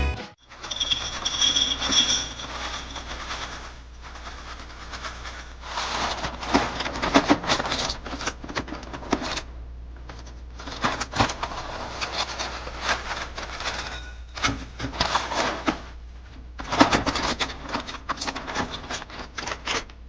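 Breakfast cereal crunching and clattering in uneven bursts with short pauses.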